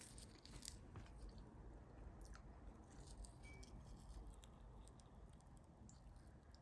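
Faint chewing with small scattered clicks, close to the microphone; otherwise near silence.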